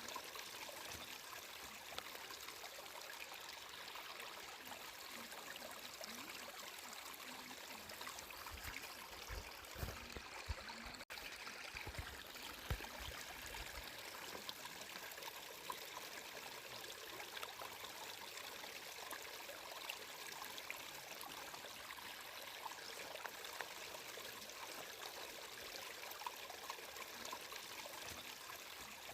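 Water flowing steadily with a continuous trickling hiss. A few low bumps come in the middle, and there is a split-second gap in the sound.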